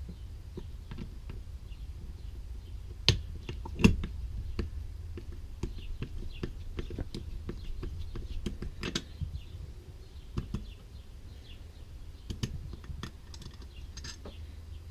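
Small metal clicks and taps of carburetor parts and tools being handled during disassembly, with two sharper clicks about three and four seconds in. A steady low hum runs underneath.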